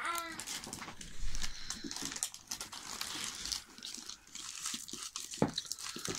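Plastic blind-bag packets crinkling and rustling as they are handled and torn open, a run of irregular crackles.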